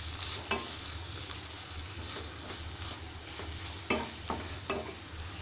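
Wooden spatula stirring a spinach and grated-coconut stir-fry in a nonstick pan, with several sharp taps and scrapes against the pan over a steady light sizzle.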